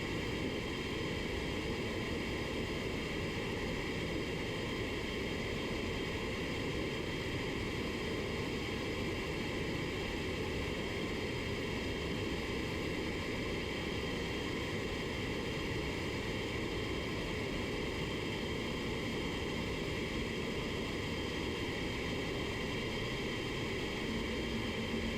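Paint booth ventilation running: a steady, even rush of air that does not change, with a faint low hum joining near the end.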